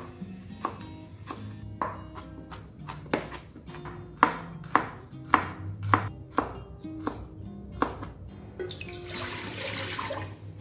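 A kitchen knife chopping red chillies and garlic on a plastic cutting board in uneven strokes, roughly one or two a second. About eight and a half seconds in, the chopping gives way to water being poured from a plastic jug into a steel cooking pot.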